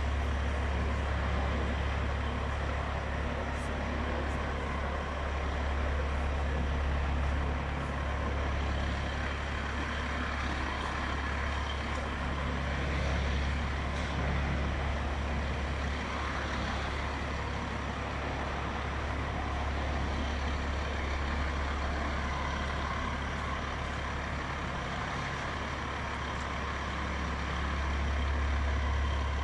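Heavy American-style semi-truck's diesel engine running at low revs as the truck creeps forward at walking pace, a steady low drone.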